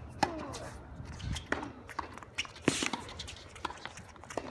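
Tennis rally on a hard court: a ball struck by rackets and bouncing, heard as sharp pops about a second apart, the loudest about two-thirds of the way through, with players' footsteps scuffing between them.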